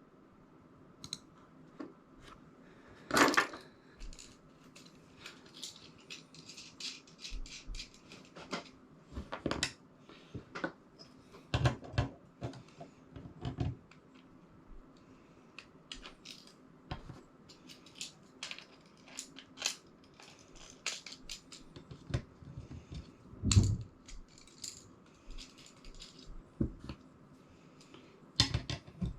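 Mounting brackets and hardware being handled and fitted: scattered metal clinks, clicks and knocks, with a louder knock about three seconds in and another a little before the end.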